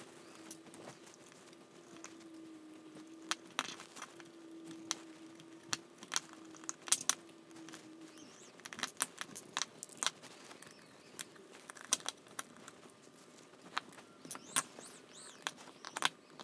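Small metal parts clicking and tapping as brushless motors and screws are handled and fitted into a machined aluminium block: scattered sharp clicks, with a faint steady hum in the first half that stops about halfway.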